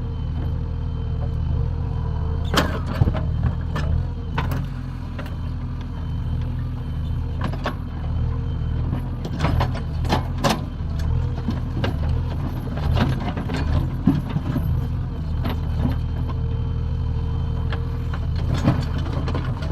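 JCB 3DX backhoe loader's diesel engine running steadily while digging, with irregular sharp clanks and knocks as the bucket strikes soil and stones.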